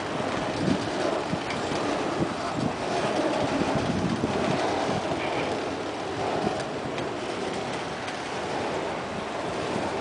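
Freight train of enclosed autorack cars rolling past close by: steel wheels running over the rails in a steady rattling rush, with irregular clicks and clanks as the wheels cross rail joints.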